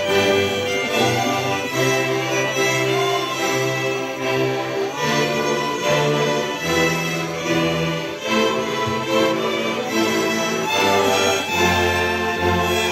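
A large Górale (Polish highland) folk string band of many violins playing a tune together, with low bass notes moving under the melody.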